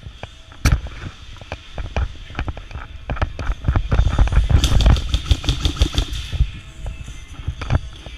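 Airsoft guns firing: scattered single shots and sharp cracks, with a rapid full-auto burst from about four to six seconds in.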